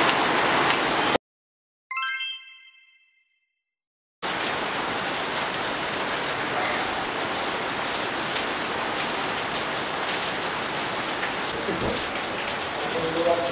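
Steady hiss of heavy rain, which cuts out to silence about a second in. A single bright chime rings in the silence and fades. The rain comes back about four seconds in and runs on steadily.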